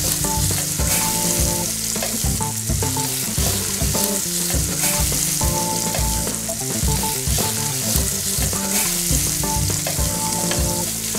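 Lamb shanks searing in hot olive oil in a large pot, a steady sizzle of frying, with metal tongs now and then turning the meat.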